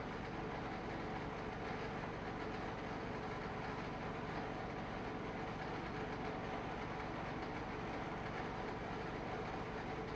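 A steady mechanical hum with a faint low drone, even and unchanging throughout.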